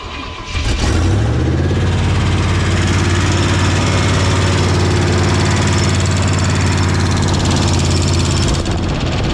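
An '88 K1500 pickup's engine, cranked and catching within about a second, then running at a steady, loud idle. It has just had a quick valve adjustment, and the owner hopes a ticking noise is just loose rockers.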